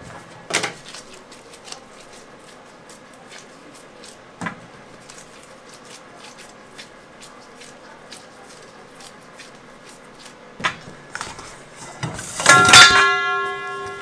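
Bagel dough being cut with a plastic bench scraper on a stainless steel worktable: a few sharp knocks of the scraper against the steel, with light tapping and handling noises between. Near the end comes a loud clatter, followed by a steady ringing tone.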